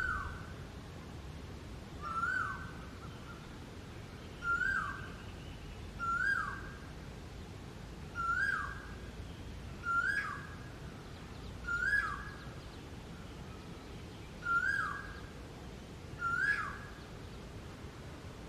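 Asian koel calling: a short note that rises and then drops, repeated about every two seconds, nine times.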